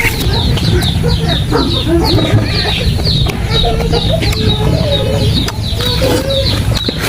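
Chickens clucking, with many short high peeps falling in pitch, several a second, over a steady low hum.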